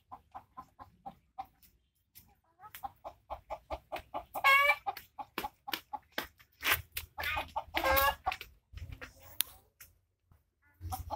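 Chickens clucking in a quick run of short notes, with a brief pause about two seconds in and louder, drawn-out calls at about four and a half and eight seconds in.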